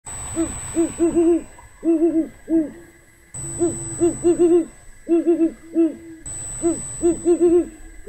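Great horned owl hooting: phrases of several low hoots in quick succession, with a short stutter partway through, each phrase repeating about every three seconds. A faint steady high whine lies underneath.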